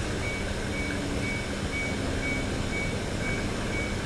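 Coin-operated front-loading washing machine running with a steady rumble and hum, while a short high electronic beep repeats about twice a second.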